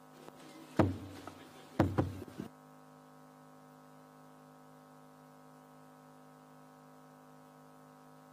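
Two dull knocks about a second apart, then a faint steady hum made of several held tones.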